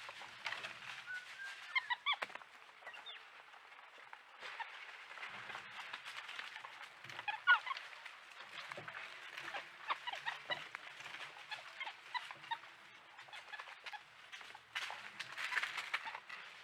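Many birds calling at once, a busy mix of short chirps and calls, with louder clusters about two seconds in, midway and near the end.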